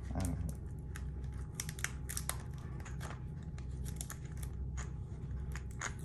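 Small knife working at the wrapping of a small box of screws to open it: a run of irregular scratching, crackling clicks, over a low steady hum.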